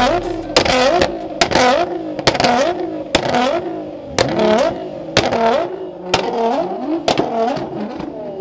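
Nissan GT-R twin-turbo V6 being revved hard over and over, about one quick rising rev a second, with sharp exhaust bangs on the blips. These are the backfire pops of a car tuned to shoot flames from the exhaust.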